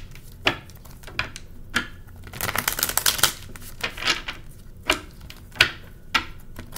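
A tarot deck being shuffled by hand: a run of sharp card snaps and taps at uneven spacing, with a denser burst of shuffling about two and a half seconds in.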